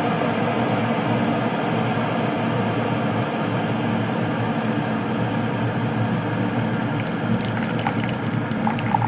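Morphy Richards Accents One Cup hot water dispenser heating water to the boil, a steady rushing noise. About six and a half seconds in, crackling and spitting set in as the boiled water begins to come out into the mug.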